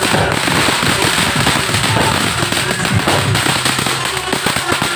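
Ground fireworks going off: a dense, rapid, unbroken crackle of many small pops over a steady hiss.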